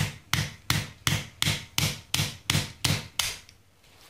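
Repeated sharp knocks with a hand tool on a Holley four-barrel carburetor, about ten strikes at nearly three a second, each with a short ring. They stop shortly before the end. The knocking is meant to free a part that is stuck.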